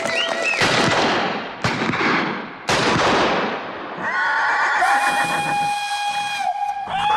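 Gunshot sound effects: three sharp shots about a second apart, each trailing off, followed by a long, steady high note.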